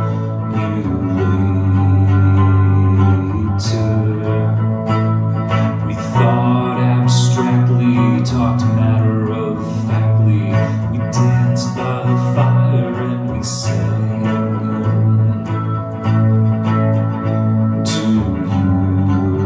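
Song played on a hollow-body archtop electric guitar, over steady sustained low notes that shift every second or two, with a few sharp strummed chords standing out.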